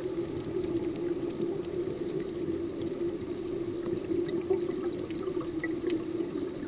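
Underwater ambience recorded on a dive camera: a steady low hum with faint scattered clicks.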